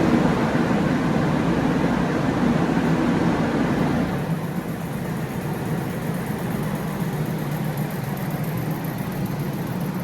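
Car or truck engine running steadily just after being started. The sound drops a little about four seconds in.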